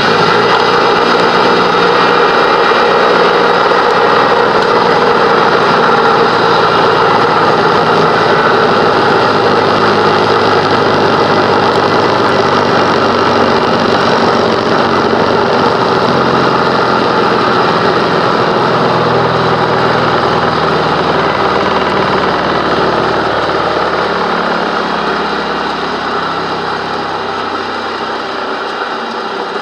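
Old electric bench grinder running with its newly fitted stones spinning, a steady motor hum and whine. It gets gradually a little quieter over the last few seconds.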